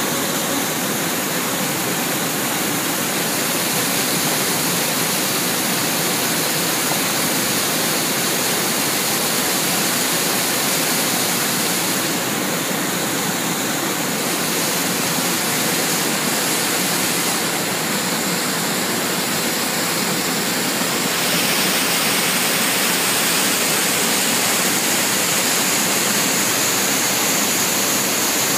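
Whitewater rushing and churning over rocks in a stream: a steady, loud rush of turbulent water that gets a little louder about three-quarters of the way in.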